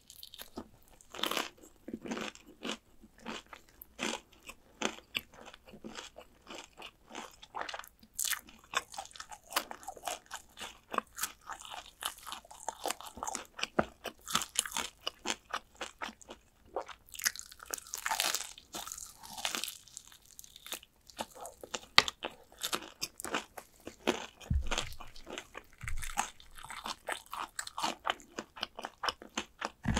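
Close-miked crunching and chewing of fried chicken drumsticks: the crisp battered skin crackles in quick, irregular crunches as it is bitten and chewed.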